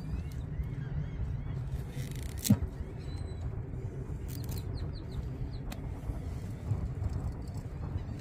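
Wind rumbling on the microphone, with faint bird chirps now and then and a single sharp knock about two and a half seconds in.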